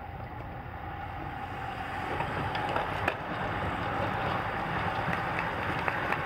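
A bunch of road racing bicycles sweeping past through a corner: the whir of tyres on pavement and the buzz of coasting freewheels, building steadily louder as the group arrives, with a few sharp clicks.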